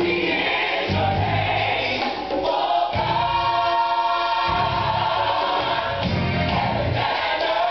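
Recorded gospel choir song with band accompaniment played over the hall's speakers; the choir holds a long sustained chord about three seconds in.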